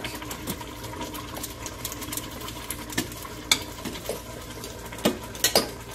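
Metal fork fluffing cooked rice in a stainless steel Instant Pot inner pot: soft scraping and stirring with scattered clinks of the fork against the pot, a few sharper ones near the end.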